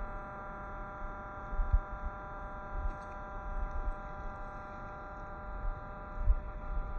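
Small electric motor and gearbox of a 1/18-scale RC crawler whining at a steady pitch, with irregular low rumbles underneath.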